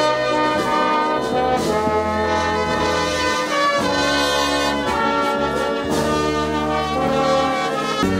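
Brass band playing slow, sustained chords, each held for about a second before the harmony shifts.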